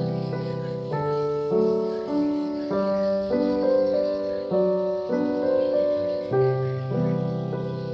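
Background piano music: a melody over chords that change every second or so.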